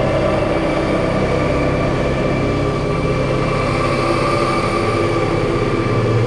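Experimental electronic drone music: dense layers of steady sustained tones over a low hum and a haze of noise, loud and unbroken. A low tone swells near the end while a higher mid tone grows brighter in the second half.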